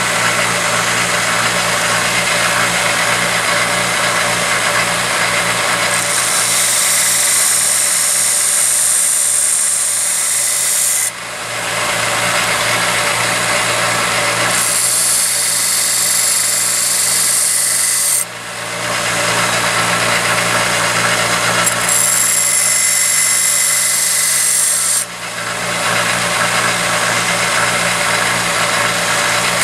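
Grizzly 1x30 belt grinder running with a steady motor hum while a knife blade is pressed to the belt in passes of three to five seconds, each adding a bright grinding hiss: the blade being sharpened. Three passes come about seven seconds apart, with a fourth starting near the end.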